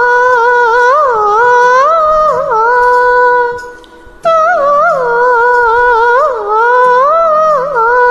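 A woman humming the song's opening melody closely into a handheld earphone microphone. It runs in two long sliding phrases with a short break a little before halfway.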